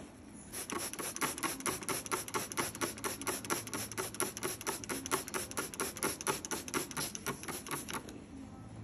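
Gloved fingers rubbing a wet toe in quick, even, scratchy strokes, about four or five a second, starting about half a second in and stopping near the end.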